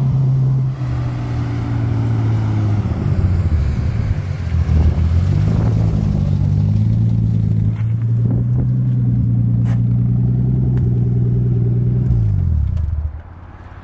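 Turbocharged car engine pulling hard under throttle, its note stepping in pitch and then holding steady. About twelve seconds in the note falls away and the engine sound drops off sharply as the throttle closes.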